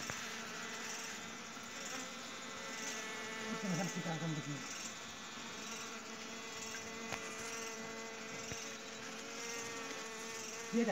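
Honey bees buzzing around open honeycomb: a steady, continuous hum. A person's voice is heard briefly about four seconds in.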